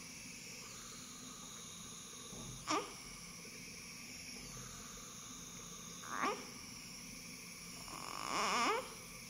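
Newborn baby fussing: three short rising whimpers about three seconds apart, the last one longer and wavering in pitch, over a steady background hiss.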